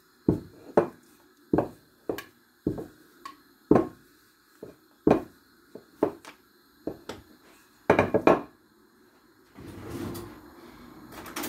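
Wooden rolling pin knocking and rolling on a kitchen worktop as chapati dough is rolled out: a string of wooden knocks about one a second, with a quick run of four near the end. A steady scraping noise follows in the last couple of seconds.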